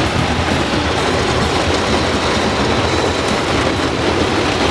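Steady rushing noise of a car being driven through heavy rain on flooded streets, heard from inside the car, with a low rumble underneath.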